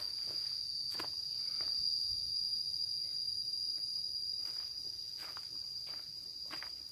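Steady, high-pitched insect drone, with footsteps on a dirt path now and then.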